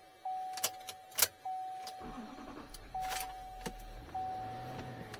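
Ignition key of a 2020 Chevy 3500 diesel being cycled on and off to prime the fuel system after a fuel filter change: sharp clicks over a steady electronic dash tone, and from about two seconds in a low hum as the electric fuel pump runs.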